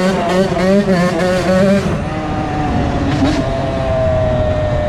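2001 Honda CR80's small two-stroke single-cylinder engine running. Its pitch wavers unevenly for about two seconds, then settles into a steady note that slowly sinks.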